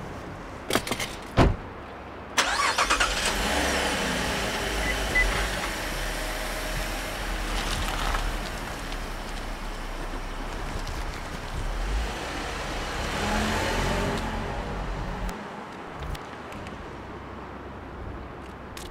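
A couple of thumps as the Holden Commodore sedan's door shuts, then its engine starts about two and a half seconds in, revs and runs as the car pulls away. It swells once more and fades out after about fifteen seconds.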